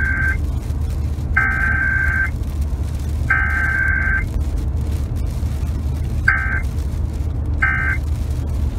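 High electronic beep tones over a steady low hum and hiss. There are three long beeps about a second and a half apart, then, after a gap, two short beeps.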